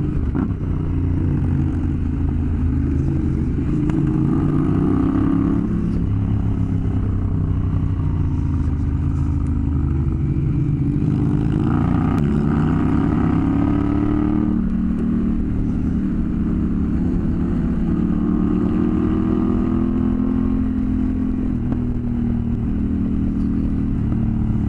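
Motorcycle engine running under way on a gravel road, its pitch rising and falling gently with the throttle over steady wind and tyre noise.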